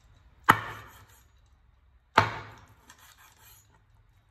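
Cleaver chopping through a raw frog onto a wooden cutting board: two sharp chops about a second and a half apart, each with a brief ring.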